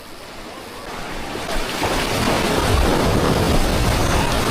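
Sea surf rushing and washing over shoreline rocks, swelling up about two seconds in and then staying loud.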